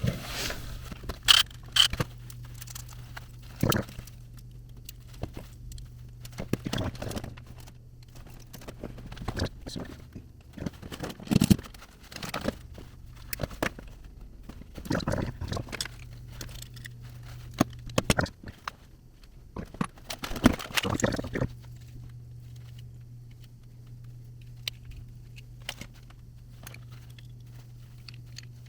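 Hands working with small fuel-line fittings and hose: scattered clicks, knocks and scrapes, busiest over the first twenty seconds and thinning to light ticks later, over a steady low hum.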